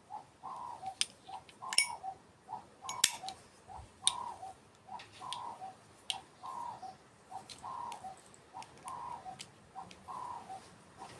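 A bird repeats a short two-part call about once a second, with sharp metallic clicks over it from a Zippo lighter being handled. The loudest are a quick run of ticks about two seconds in and a single click about three seconds in.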